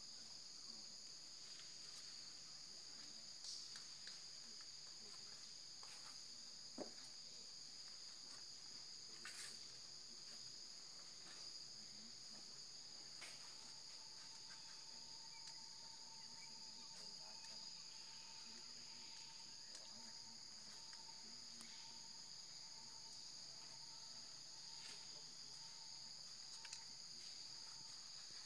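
Faint, steady, high-pitched insect chorus that runs unbroken. A fainter, lower steady tone joins about halfway, and a few soft clicks are scattered through.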